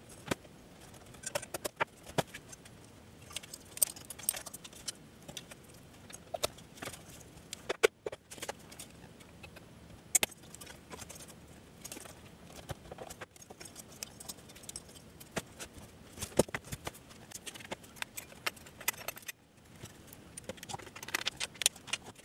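Irregular clicks and knocks of an Agilent E3632A power supply's plastic front bezel, front panel and sheet-metal chassis being handled and fitted together by hand during reassembly, some coming in quick clusters.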